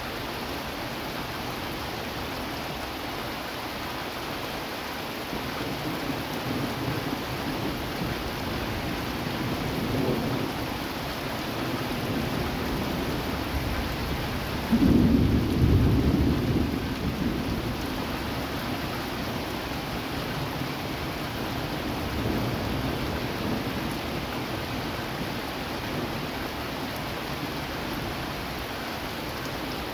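Steady rain with rolling thunder. A low rumble builds over the first ten seconds. About halfway through comes a sudden, louder peal that rolls away over a few seconds, and a softer rumble follows later.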